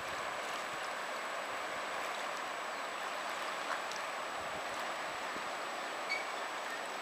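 Fast-flowing river rushing steadily over its stony bed.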